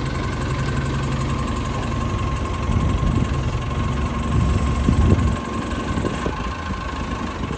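Forklift engine running as the machine maneuvers its forks, with a steady whine over the rumble and a brief rise in engine effort about five seconds in.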